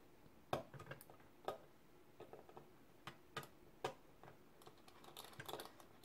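Faint scattered clicks and taps of a small screw and screwdriver being handled and fitted to hold an M.2 SSD down in a mini PC, with a few sharper clicks about a second apart and a cluster of small ticks near the end.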